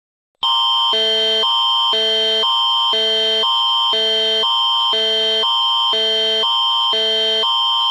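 Canadian Alert Ready emergency alert attention signal: two tone chords alternating about twice a second over one steady high tone, loud and unbroken, starting about half a second in.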